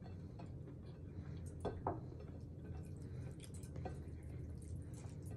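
Quiet eating sounds: faint chewing and fingers squishing rice and curry on a plate, with a few light clicks, over a low steady room hum.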